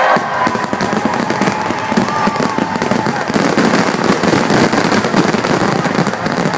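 Dense fireworks barrage: many aerial shells bursting in rapid, overlapping succession, a continuous run of bangs and crackling.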